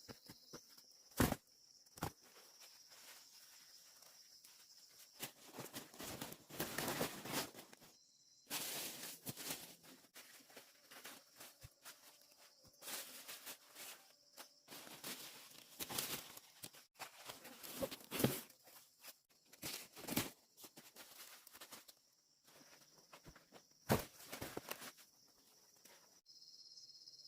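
Irregular rustling and crackling of vegetation, with a few sharp snaps, over steady cricket chirping.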